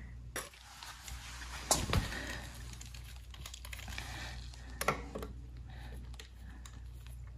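Scattered light clicks and taps of a digital micrometer being handled and set against the welded steel frame of a floor jack, with two louder knocks about two and five seconds in. A steady low hum sits underneath.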